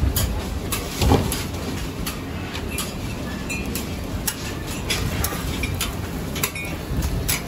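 Metal spatula clicking and scraping on a flat iron griddle as roti canai are turned and stacked, with irregular taps and a louder knock about a second in, over a steady low rumble.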